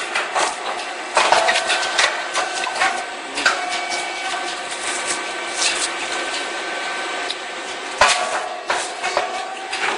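Puffed rice cake popping machine running: irregular sharp clicks and knocks from its pressing mechanism over a steady machine hum.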